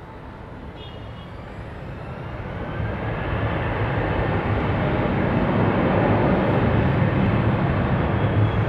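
Airbus A320 jet engines spooling up for takeoff. A steady jet roar grows much louder over the first several seconds, with a faint rising whine, then holds at full strength.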